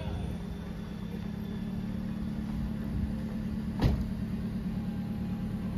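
Steady low rumble of a running vehicle, with a single sharp knock about four seconds in.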